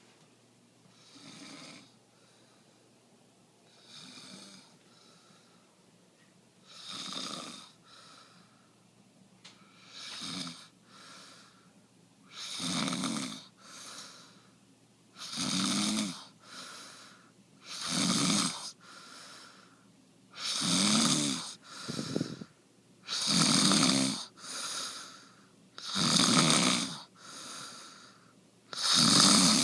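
A person snoring in a steady rhythm, a loud snore about every two and a half seconds, each followed by a shorter, softer breath sound. It starts faint and grows louder as it goes on.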